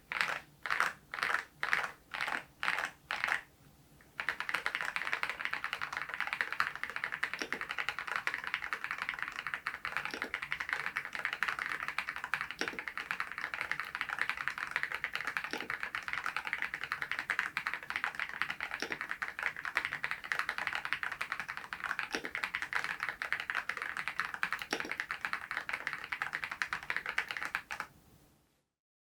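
RK R99 mechanical keyboard with HMX V0-SS switches being typed on: a few evenly spaced single keystrokes at first, then after a brief pause a long run of fast continuous typing, with a deeper stroke every few seconds, that stops shortly before the end.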